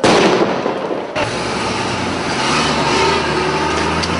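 A loud firecracker bang that rings out for about a second, then a steady low engine drone with noise around it.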